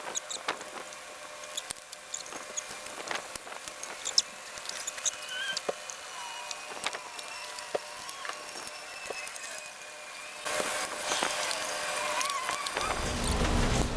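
Scattered light clicks and taps of a Torx driver, screws and plastic parts being handled while the motorcycle's headlight housing is screwed back together. A steadier hiss comes in about ten seconds in, with a low rumble near the end.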